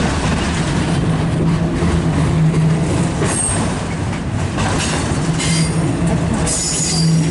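Canadian Pacific freight train of auto rack cars rolling past: a steady rumble of wheels on rail, with brief high wheel squeals about three and a half seconds in and again near the end.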